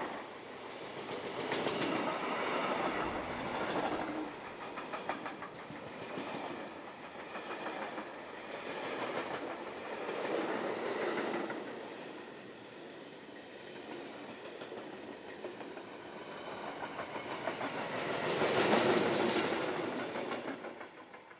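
Freight train of sliding-wall and hopper wagons rolling past close by, wheels clicking rhythmically over the rail joints. The rolling noise swells and ebbs as the wagons go by, is loudest shortly before the end, then falls away as the last wagons pass.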